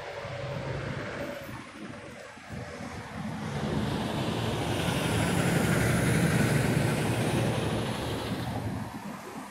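Semi-trailer truck driving past on the street, its low engine rumble and road noise building up, loudest in the middle, then fading away near the end.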